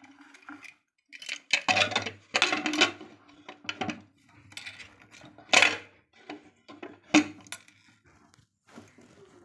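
Metal lid of a pressure cooker being fitted onto the pot and locked shut: a series of separate metal clanks and clatters, the loudest a little over halfway through.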